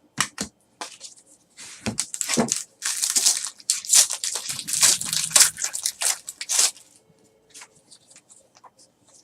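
Trading card pack wrapper crinkling and tearing as a pack is opened and the cards are handled, busy for about seven seconds, then a few faint ticks near the end.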